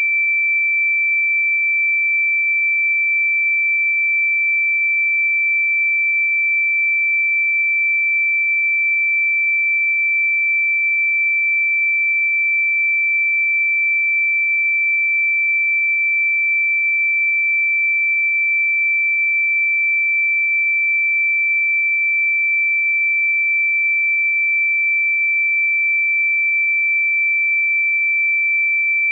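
A single high-pitched electronic sine tone, held at one pitch and one level without change: a generated 'healing frequency' tone.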